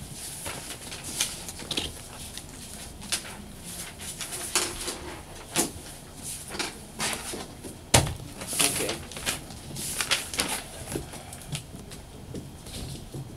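Scattered clicks, taps and rustles of objects being handled on a desk, irregular and short, with one sharp knock about eight seconds in.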